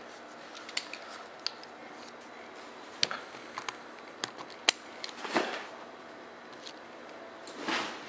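Screwdriver turning the action screw through a Tikka T3X's trigger guard: scattered light clicks and taps of tool on metal, with a longer rustle about five seconds in and another near the end.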